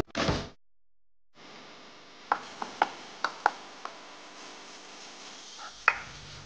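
Plastic spatula stirring a satay spice paste frying in a non-stick pan, with a faint steady sizzle. Several sharp taps of the spatula against the pan come about two to four seconds in, and one louder knock comes near the end. The tail of background music cuts off at the very start.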